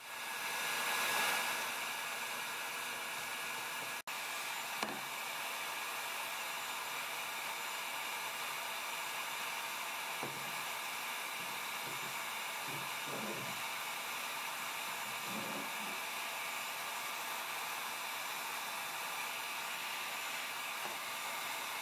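Heat gun blowing steadily, an even rushing hiss of fan and hot air. A few faint light taps come through in the middle of it.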